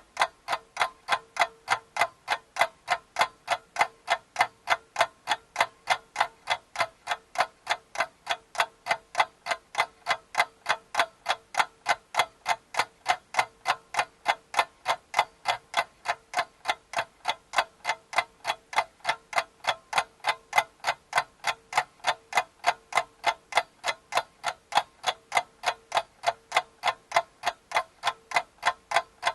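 Steady, evenly spaced clock-like ticking, about three ticks a second, with no change in pace.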